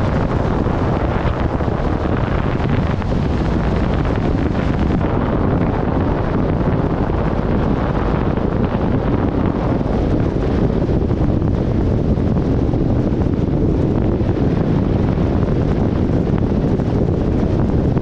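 Steady rush of wind on the microphone over the road and tyre noise of a Ram pickup truck driving along a snowy road.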